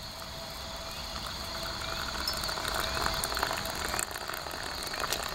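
Manual hand coffee grinder grinding coffee beans: a steady gritty rattle of many small clicks that grows slowly louder.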